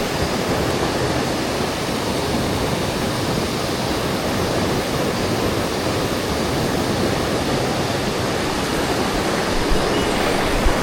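Mountain stream rushing over rocks, a steady loud wash of water noise.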